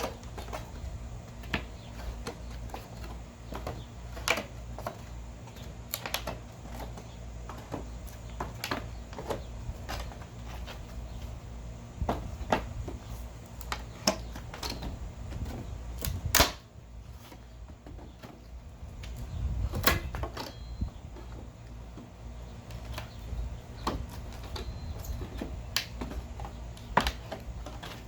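Wooden pallet being pried apart with a steel pallet buster bar: irregular clicks, knocks and cracks of boards and nails coming loose, with the sharpest crack about sixteen seconds in.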